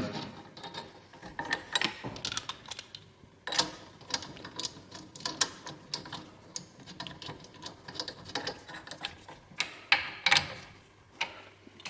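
Irregular metallic clicks and taps of a 17mm socket on an extension turning the bolts of an aluminium wheel spacer onto the hub, done up hand tight, with a quick flurry of clicks near the end.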